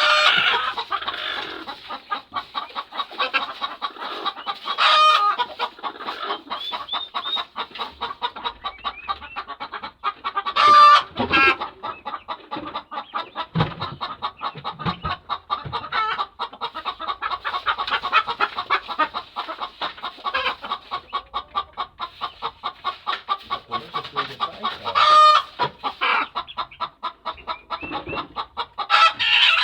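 A flock of chickens clucking and calling without a break, with several louder calls standing out from the din.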